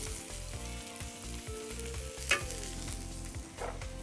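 Soft background music over a faint frying hiss, with one light clink about two seconds in as a drumstick is set on a plate with metal tongs.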